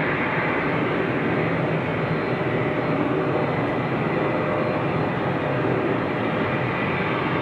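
Boeing 737 jet engines running on approach to landing: a steady rushing noise with a faint high whine.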